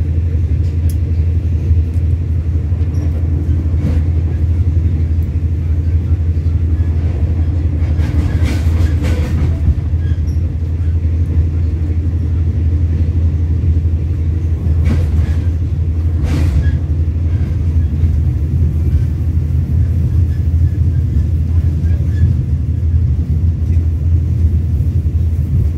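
Steady low rumble of a passenger train coach running at speed, heard from inside the carriage, with a few brief clanks and rattles about eight seconds in and again around fifteen to sixteen seconds.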